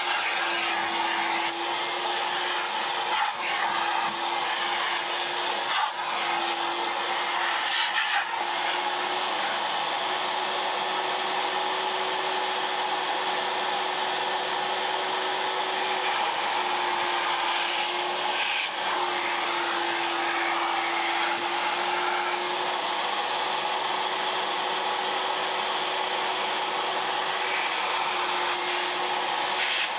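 Vacuum cleaner running steadily. Its motor tone shifts slightly in pitch now and then, and a few light knocks come in the first third and again past the middle.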